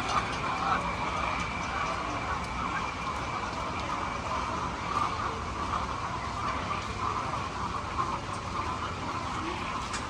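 A flock of hens in a coop clucking and calling together in a continuous, wavering chatter, with a faint steady high tone that fades out about four seconds in.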